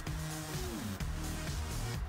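Background music with a beat; one held note slides down in pitch partway through.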